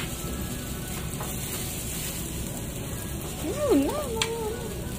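Food sizzling as it cooks, a steady hiss. About three and a half seconds in, a short wavering pitched sound, the loudest moment, with a single sharp click just after it.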